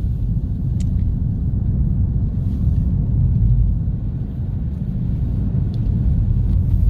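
Car driving, a steady low rumble of engine and road noise, with a faint click a little under a second in.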